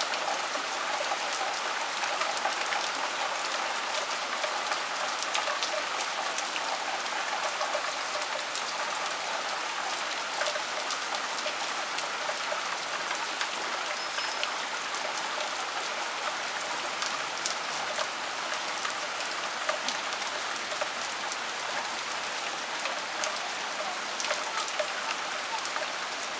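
Steady rain falling, a constant hiss with many scattered sharp drop hits close by.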